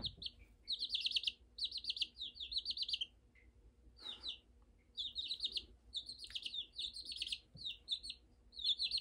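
Thirteen-day-old chicks twittering in quick, high, trilled calls that come in short runs, with a lull about halfway through. This twittering, which replaces single peeps, is the 'singing' that chicks take up at about two weeks old.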